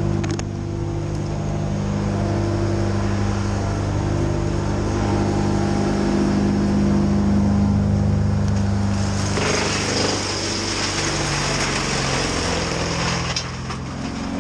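An engine running steadily. About nine and a half seconds in, a loud rushing noise joins it.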